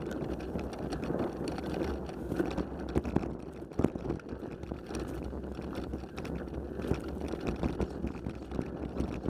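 Bicycle ridden over bumpy grass: a continuous rumble of the tyres and the camera mount being jostled, with scattered sharp knocks from bumps, the loudest about four seconds in.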